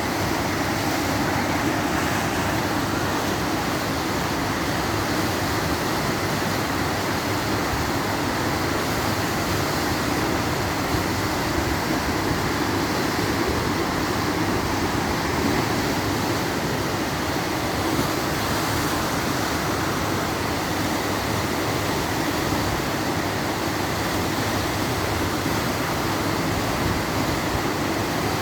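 Steady rushing noise of whitewater rapids on a river.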